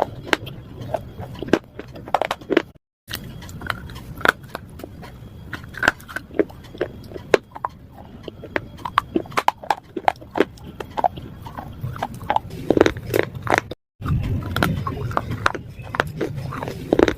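Close-up crunching and chewing of hard slate pieces: many irregular sharp cracks as they are bitten and ground between the teeth.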